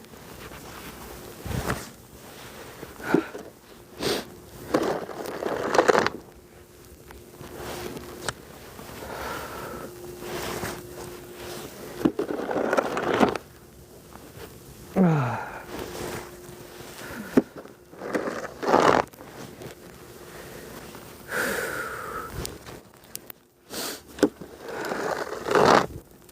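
Irregular scrapes of a snow shovel through snow, with sniffing and hard breathing between the strokes.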